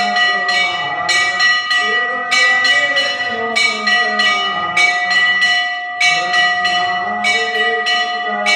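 Large hanging brass temple bell rung by hand, struck over and over at about two to three strokes a second, each strike ringing on into the next, with a short break about two seconds in. A voice sings along underneath the bell.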